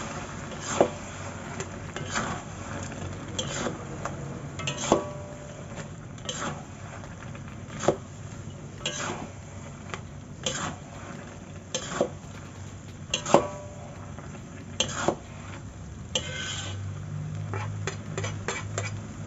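A spatula scrapes and clacks against a metal wok as rice vermicelli is stir-fried. The sharp knocks come about every second and a half over a low steady hiss.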